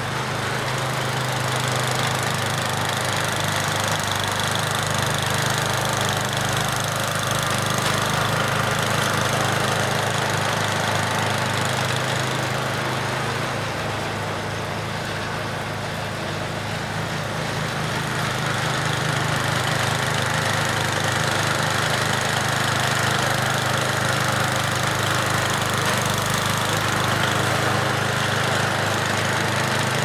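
Old Ariens snowblower's single-cylinder engine running steadily, its loudness swelling and easing a little.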